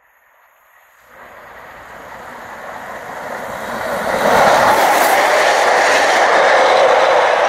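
Steam-hauled train approaching along the line. Its running noise grows steadily louder from about a second in until, roughly halfway through, it is loud and close.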